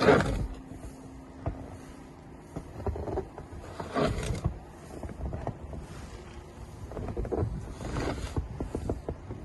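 Snow shovel scraping and pushing snow across a deck, in several strokes a few seconds apart, the loudest at the start.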